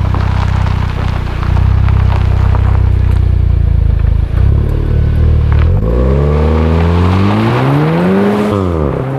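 VW Golf R's turbocharged 2.0-litre four-cylinder exhaust, with the factory resonator replaced by a resonator delete pipe, rumbling steadily at low revs close by. It then pulls away under hard acceleration, its pitch rising for about three seconds before falling sharply near the end as the gearbox shifts up.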